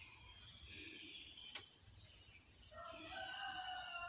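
Background ambience: a steady high-pitched insect drone with a single faint click about a second and a half in. From about two-thirds in comes a long, slightly falling animal call with several overtones.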